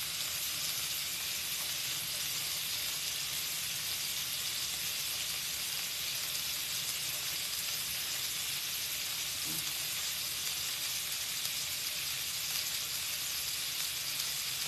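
Onions, tomatoes and bell peppers sizzling steadily on a hot stovetop griddle.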